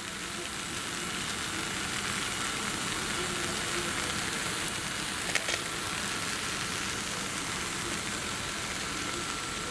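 Steady hiss of falling rain with a faint steady tone underneath, and a light tap about five seconds in.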